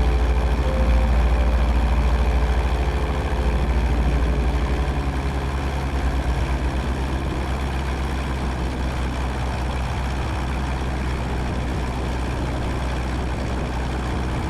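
Cessna 172N's four-cylinder Lycoming engine and propeller droning steadily in cruise at reduced slow-flight power, heard from inside the cabin. The drone eases slightly over the first few seconds, then holds steady.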